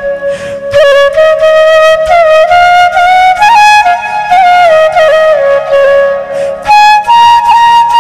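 Background music: a solo flute playing a slow melody of held notes with small ornamental turns, stepping up in pitch near the end.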